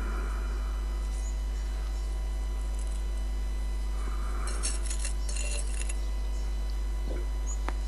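Steel mason's trowel scraping and clinking against brick tiles, with a short run of light metallic clinks about halfway through and a few small clicks near the end. A steady low electrical hum runs underneath and is the loudest thing throughout.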